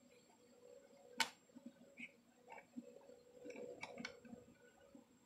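Faint metal handling clicks as a bolt is started by hand into the cutter assembly: one sharp click about a second in, then lighter taps and two more clicks a little before the end.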